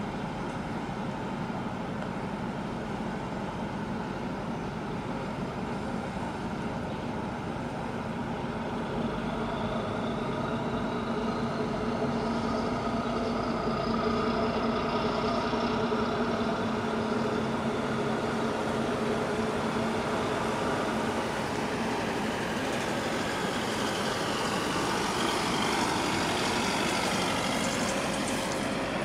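Diesel engines of a harbour tug and a passing container ship, a steady drone with a faint high whine that rises about ten seconds in.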